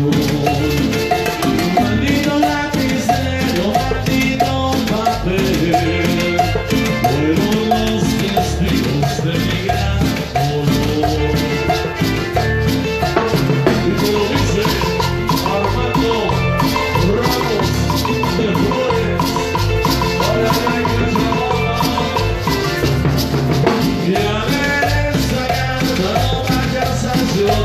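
A band playing Latin dance music, with a steady percussion beat and a melody running over it.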